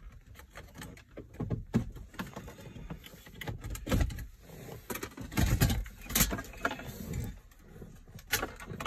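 Irregular clicks, knocks and rattles of hard plastic and metal as a car's factory radio head unit is unscrewed and worked loose from the dashboard, with a cluster of louder knocks about four seconds in and again past the middle.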